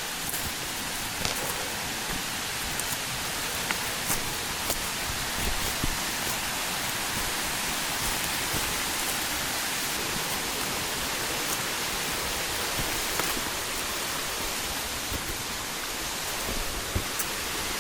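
Running water of a small mountain stream: a steady, even rush with no changes.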